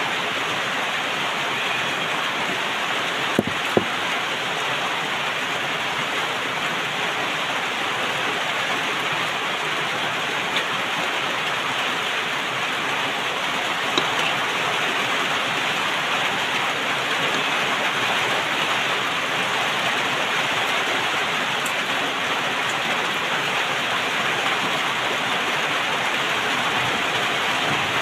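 Steady rain-like rushing noise, even throughout, with a few short sharp clicks about three seconds in and again about halfway through.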